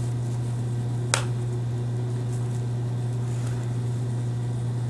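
Steady low hum, with one sharp click about a second in.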